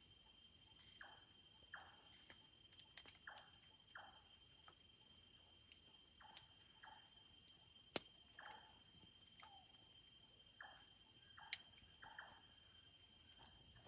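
Faint, steady high-pitched trilling of crickets or other insects. Short chirps from another animal repeat about once a second, and two sharp clicks come about eight and eleven seconds in.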